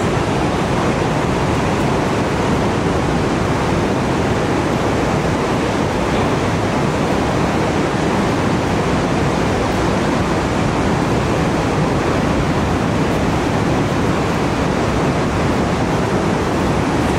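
Steady roar of ocean surf breaking on a reef, an even rushing noise that does not let up.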